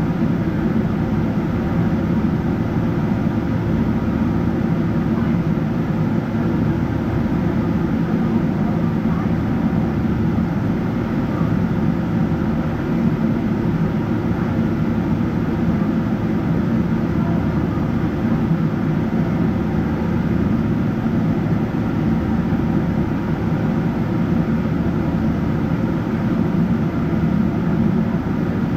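Steady cabin noise inside a Boeing 777-300ER airliner: a low rumble from its GE90-115B jet engines and airflow, even and unchanging.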